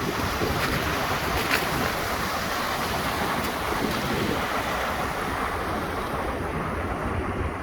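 Strong storm wind blowing steadily, with wind buffeting the microphone.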